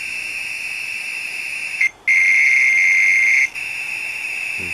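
NVR-D10 RF meter's audio feedback sounding a steady high whistle-like tone from ambient radio signals. About two seconds in the tone cuts out briefly, then a louder, slightly lower tone sounds for about a second and a half before the steady tone returns, the meter's response to a phone coming out of airplane mode and transmitting.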